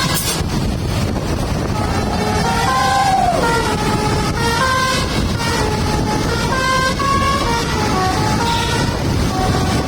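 Basuri telolet bus horn, a multi-tone air horn, playing a melody: short held notes stepping up and down, with a slow sliding note about three seconds in, over a steady low rumble.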